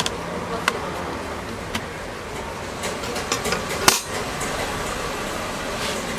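A thin metal backing plate from a laptop's keyboard deck being lifted off and handled: scattered light clicks and clinks of sheet metal against plastic, the sharpest a little before four seconds in as the plate is set down on the bench, over steady background noise.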